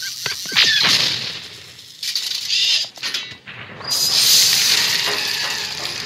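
Science-fiction sound effects from an animated film's effects-only soundtrack, played through a TV: several quick falling electronic sweeps in the first second, then bursts of hiss and whooshing, with a loud steady hiss from about four seconds in.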